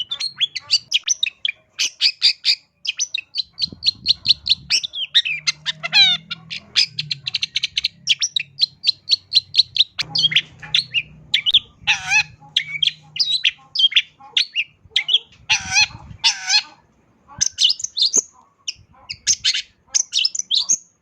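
Long-tailed shrike singing a fast, varied song packed with phrases mimicked from other birds: rapid runs of short chirps, a quick wavering trill about six seconds in, and louder, harsher notes in the second half.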